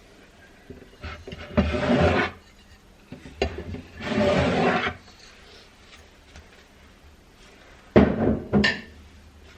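Household handling and cleaning noises: three short bursts of scraping or rustling, each under a second, with a few light knocks between them.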